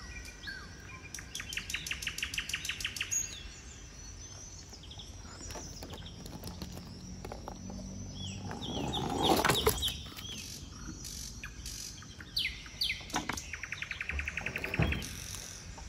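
Garden birds singing: repeated fast trills and short falling chirps. About eight and a half seconds in comes a louder rushing rattle lasting about a second and a half, a plastic toy monster truck rolling down a slide, and near the end there are a couple of light knocks.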